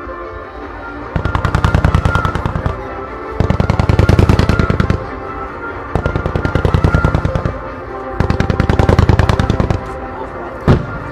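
Fireworks starmine firing in four rapid-fire volleys, each a fast string of shots about a second and a half long, with one single loud bang near the end. Music plays underneath.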